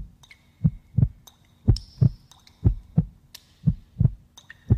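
Heartbeat sound effect: a double lub-dub thump about once a second, five beats in all. Faint high electronic beeps and a low steady hum sound between the beats.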